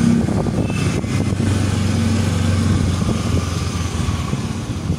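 Motorcycle engine running steadily at low speed, heard from on the moving bike, with road and wind noise.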